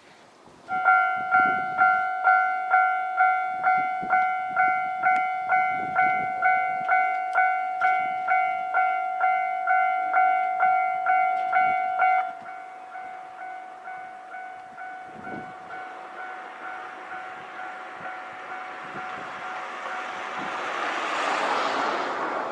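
Japanese level-crossing alarm bell ringing, a ding repeated about twice a second. About halfway through it drops abruptly to a much quieter ring. Near the end a KiHa 127 diesel railcar can be heard approaching, growing louder.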